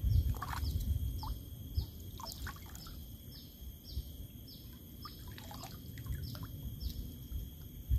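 A bird repeating a short high call about twice a second, with other chirps and a steady high insect whine, over a low rumble of water and wind.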